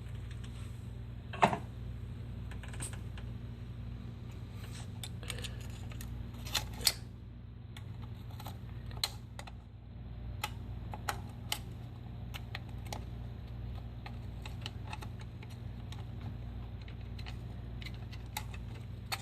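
Scattered light clicks and taps of parts being handled under the hood, the sharpest about a second and a half in, over a steady low hum.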